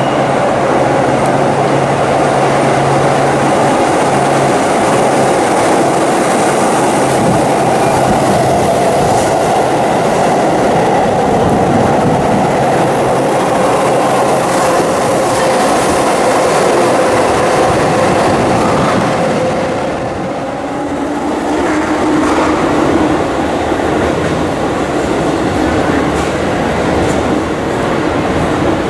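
Keihan electric train running along an underground station platform: loud, steady wheel-on-rail rumble with a steady whine over it. About two-thirds of the way through the sound dips briefly, then carries on with a lower whine.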